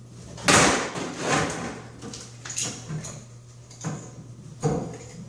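A loud knock with a scrape about half a second in, then a run of lighter knocks and clunks as a hand tool works at the top of the fiberglass tub surround. A steady low hum runs underneath.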